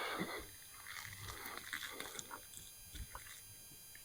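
Faint biting and chewing of a chocolate Moon Pie: a noisy bite at the start, then irregular soft crunches and mouth clicks.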